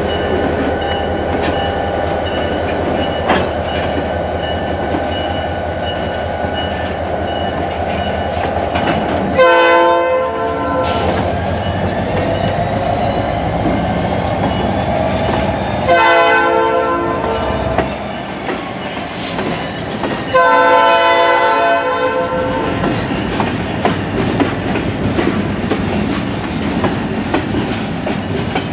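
Freight train passing: a diesel locomotive's rumble under the clatter of gondola cars' wheels on the rails. The lead locomotive sounds its horn three times: a short blast about ten seconds in, another about six seconds later, then a longer one about twenty seconds in.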